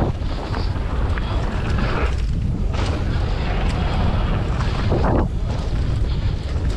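Wind rushing hard over the camera microphone on a mountain bike riding fast down a dirt trail, over the steady rumble of the tyres on the ground.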